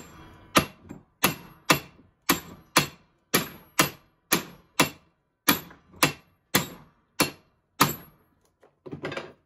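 Small sledgehammer blows on the yoke ear of a Ford Super Duty Dana 60 front axle stub shaft resting on vise jaws, driving the U-joint out. About fifteen hard, even strikes come at roughly two a second, each with a short ring, and stop about eight seconds in.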